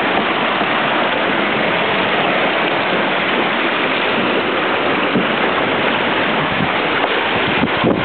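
Steady, loud rush of water along the hull and wake of a Mini 6.50 prototype sailboat sailing fast.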